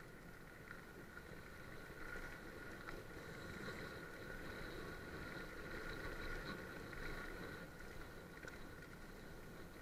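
Mountain bike rolling fast down a dirt, leaf-covered trail: steady tyre and trail noise with a faint high whir, growing louder in the middle.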